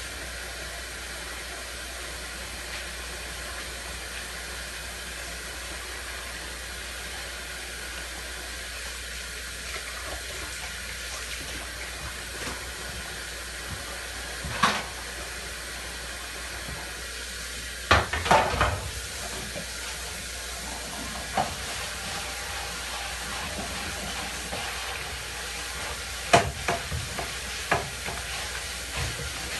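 Dishes being washed by hand in a sink: a steady hiss of water and scrubbing, broken by sharp clinks and knocks of dishes. There is one clink about halfway, a cluster a few seconds later, and several more near the end.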